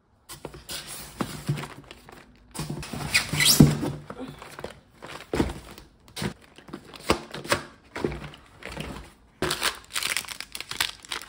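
Crinkling and rustling of a plastic snack package being handled, in irregular bursts of crackles, loudest about three and a half seconds in.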